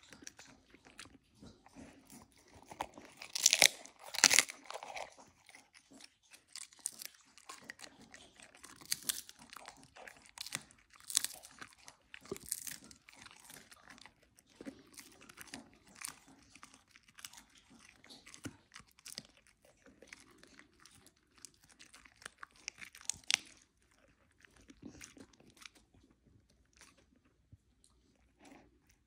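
Siberian husky chewing a dried cod-skin roll: irregular crisp crunches as its teeth break the brittle fish skin, loudest a few seconds in, with a sharp crunch a little before the end and quieter chewing near the end.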